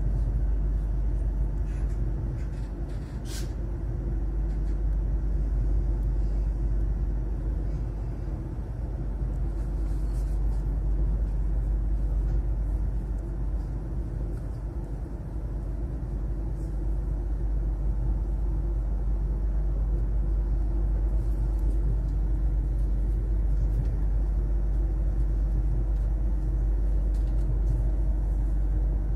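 Stadler ЭШ2 (KISS) double-decker electric train running, heard from inside the carriage as a steady low rumble. There is one brief sharp click a little over three seconds in.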